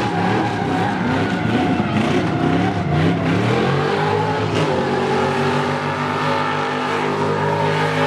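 Car engine revving hard, its pitch jumping rapidly up and down for the first few seconds, then held at a high, slowly rising pitch from about halfway through.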